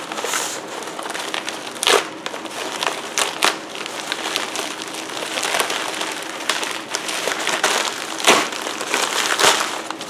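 Plastic postal mailer crinkling and crackling as it is handled and torn open by hand, with several sharper crackles and rips.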